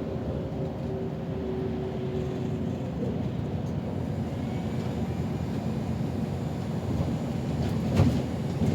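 City bus in motion heard from inside: a steady low rumble of engine and road. Two short knocks near the end.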